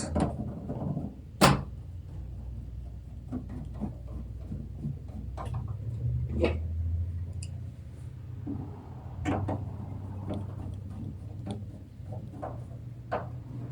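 Screws being fitted into a computer by hand: scattered clicks and light knocks of screws, screwdriver and metal parts, the sharpest about a second and a half in, over a low steady hum.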